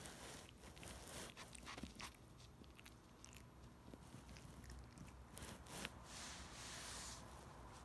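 A small dog nibbling and chewing, with faint quick clicks of its teeth and mouth, and a soft rustle about six seconds in.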